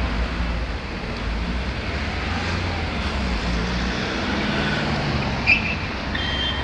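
Street traffic: cars driving through an intersection with a steady engine and tyre rumble. A short sharp click sounds about five and a half seconds in, and a brief thin high tone comes near the end.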